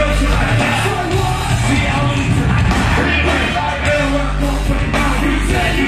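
Loud live hip-hop/rap-rock music over a concert PA, with a heavy bass line and shouted vocals, and the crowd yelling along.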